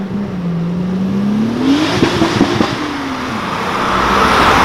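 Turbocharged VR6 engine revving hard at a launch, its note climbing, with a string of crackles about two seconds in. A rising hiss of tyre noise builds, and a wavering tyre squeal comes near the end.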